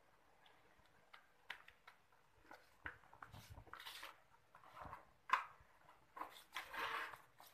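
A fresh leaf rustling and crackling in irregular bursts, with small clicks, as it is folded and rolled by hand around a portion of sticky rice.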